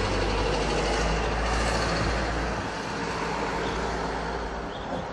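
Steady low engine rumble; the deepest part eases off about two and a half seconds in.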